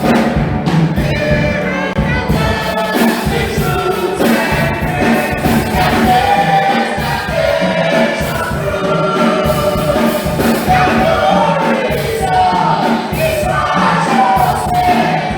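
Church choir singing a gospel song to instrumental backing with a steady beat.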